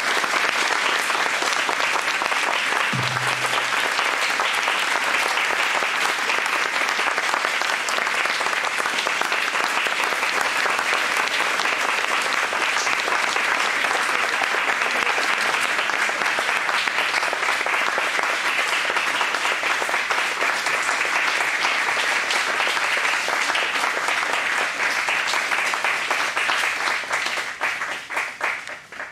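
Audience applauding steadily, then thinning to scattered claps and dying away near the end.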